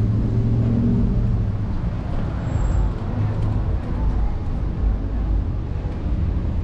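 City street traffic: motor vehicles passing with a steady low rumble of road noise.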